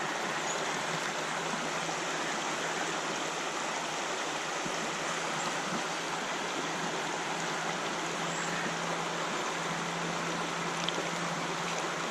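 Shallow river water rushing steadily over stones.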